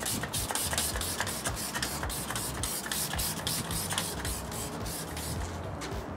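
Hand trigger spray bottle of Muc-Off bike cleaner squeezed again and again, giving a quick run of short hissing squirts, several a second, as the cleaner is misted over a motorcycle.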